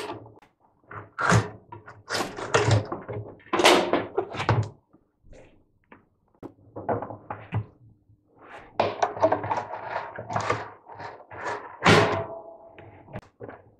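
Knocks, clunks and scraping from hands and tools working on a washing machine's outer tub as the counterweight is taken off and set down, with a few metallic rings.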